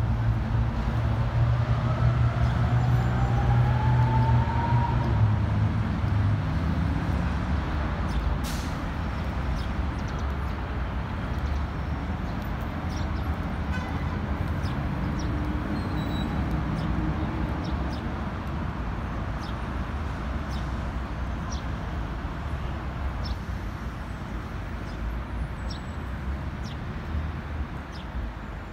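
Steady city street traffic noise. A heavy vehicle's engine hum is strongest in the first few seconds while a whine rises in pitch as a vehicle pulls away, and a single sharp click comes about eight seconds in.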